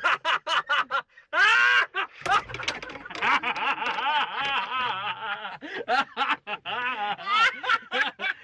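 People laughing hard in quick repeated bursts, several voices overlapping.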